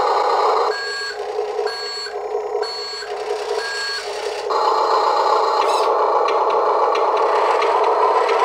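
The RC dump truck's reverse warning beeper sounds about four evenly spaced beeps over a steady running hum from the model. About halfway through the beeps stop and the hum grows louder.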